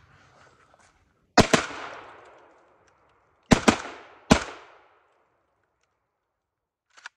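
Three shotgun blasts from a JTS AK-style 12-gauge semi-automatic shotgun with a binary trigger: one about a second and a half in, then two less than a second apart around the middle, each followed by echo dying away over about a second. A few light clicks start just before the end.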